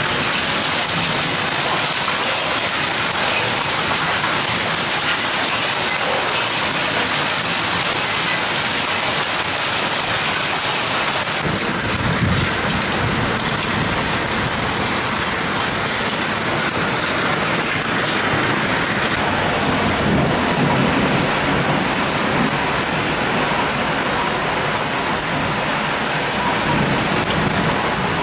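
Heavy downpour hissing steadily on a paved street and pavement. From about a third of the way in, a low rumble from storm wind joins the rain.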